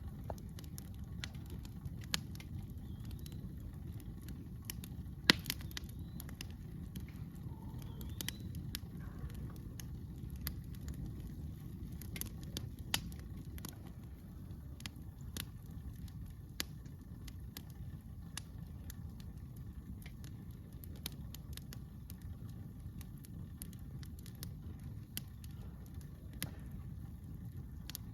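Campfire wood crackling and popping in irregular sharp snaps over a steady low rumble, with one louder pop about five seconds in.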